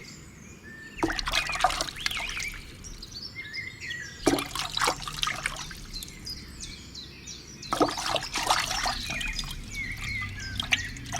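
Water gushing and splashing in three short spurts, with small birds chirping throughout.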